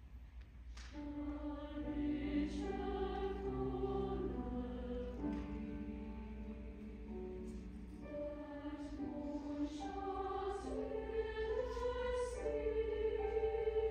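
Large mixed choir singing slow, sustained chords in harmony. It comes in softly about a second in after a brief hush and gradually swells.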